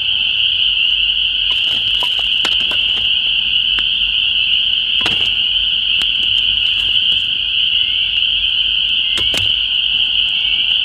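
Dense chorus of spring peepers, a loud unbroken high peeping. A campfire crackles and pops now and then through it, with the sharpest pop about five seconds in and two more around nine seconds.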